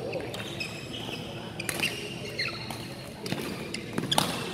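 Badminton rally: a few sharp racket hits on the shuttlecock, one about two seconds in and two close together near the end, with short squeaks of court shoes on the floor between them.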